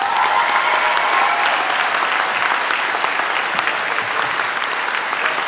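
Audience applauding steadily for a graduate as the doctorate is conferred.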